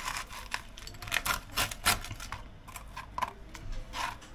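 Knife cutting tortillas into triangles: an uneven, rapid series of short clicks and taps.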